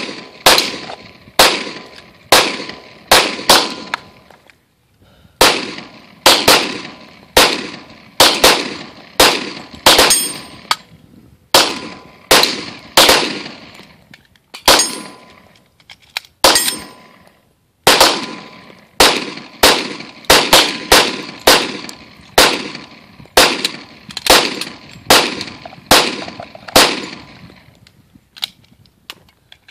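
Semi-automatic rifle, an AR-15 or AK-47, fired shot after shot in steady, uneven single shots, mostly about one a second with some quick doubles. Each shot is followed by a short echo. The firing stops shortly before the end.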